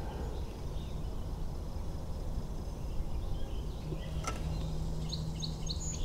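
Outdoor ambience with a steady low rumble and no gunshot. There is a faint click about four seconds in, then a bird gives a few short chirps near the end.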